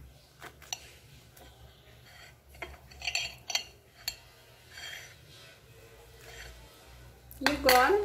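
Table knife clinking and scraping against a ceramic plate while cutting a soft homemade bread, in scattered light taps. A woman's voice speaks briefly near the end.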